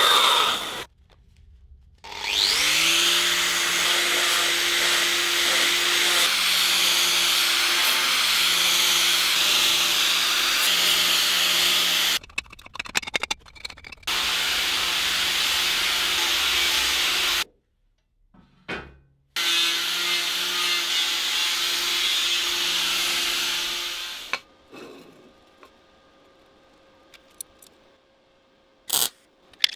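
Electric power tool working metal in three runs of several seconds: it spins up with a rising whine, then runs steadily with a harsh cutting or grinding noise, stopping twice and starting again. Short knocks and clicks of handling fall in the pauses.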